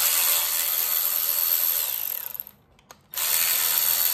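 Cordless electric ratchet running twice, about two and a half and two seconds long with a short pause between, backing screws out of a plastic coolant pump housing. Each run is a steady motor whine that drops in pitch as the tool stops.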